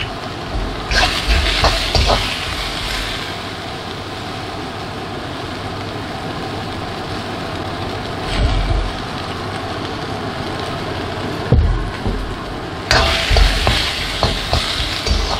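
Diced vegetables sizzling steadily in a wok, with bursts of a metal spatula scraping and stirring them about a second in and again near the end, and a single knock shortly before.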